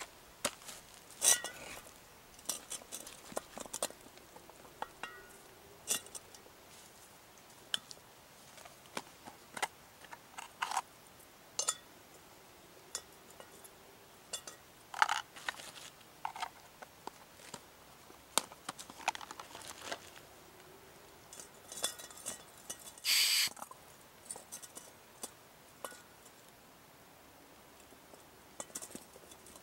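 Handling of a backpacking canister stove and gas canister: scattered small metal and plastic clicks and knocks with bits of tarp rustling, and one short louder rush of noise about three-quarters of the way through.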